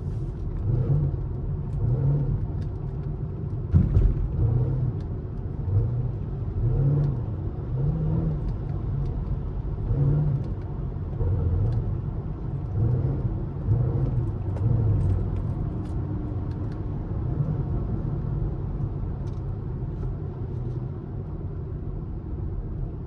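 Chevrolet Camaro SS 6.2-litre V8 rumbling through its exhaust while driving, heard from inside the cabin, with the engine note swelling and dropping about once a second as the throttle comes on and off. There is a single sharp thump about four seconds in.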